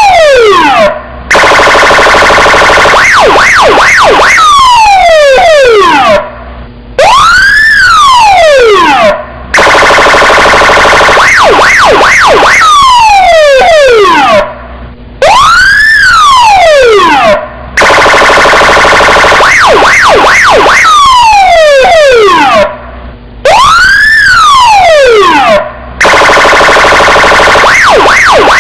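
Electronic police car siren cycling through its tones: a wail that rises and falls, then a steady horn-like tone with four quick yelps over it, then a falling sweep. The pattern repeats about every eight seconds, with short breaks between parts.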